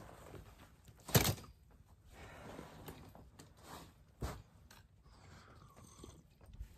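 Handling noises from camp gear: a sharp knock about a second in, a smaller knock a little after four seconds, and soft rustling and shuffling between.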